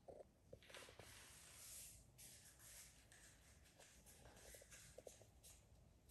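Faint handling noise from a rubber golf grip being worked in the hands during regripping: soft swishing, with short squeaky rattles about half a second in and again around four to five seconds in.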